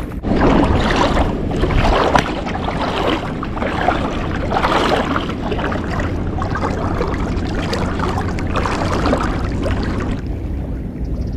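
Loud outdoor wind and water noise on the microphone, rising and falling in gusts over a steady low rumble, easing about ten seconds in.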